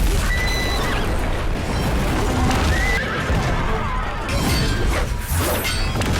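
Horses whinnying in a film battle soundtrack, over music.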